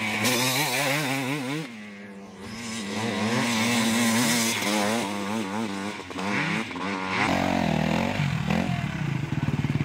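Dirt bike engines revving hard, their pitch rising and falling as the riders work the throttle. The sound drops away briefly about two seconds in, and near the end a bike runs closer at a lower, pulsing note.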